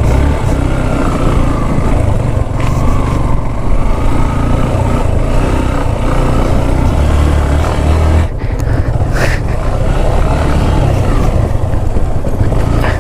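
Yamaha FZ V3 single-cylinder motorcycle running while being ridden over a rough gravel road, with heavy wind rumble on the microphone and a few knocks from the bumpy surface.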